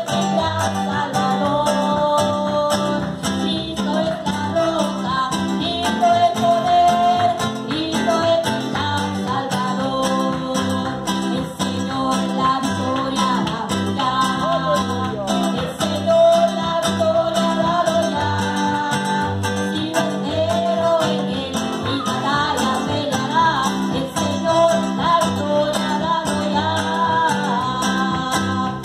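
Latin American song playing, with a sung melody over guitar and a steady beat.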